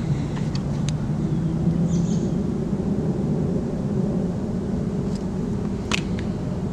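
Motor vehicle engine running with a steady low hum. A short sharp click sounds about six seconds in.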